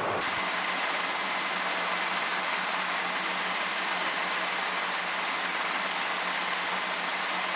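Steady, even hiss with a faint constant hum: background recording noise, starting and stopping abruptly. The piping of cream itself is not heard.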